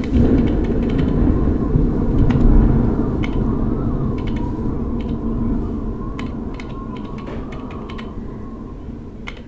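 Computer keyboard keys clicking one at a time at an uneven pace as a name is typed, over a low rumbling drone that slowly fades out.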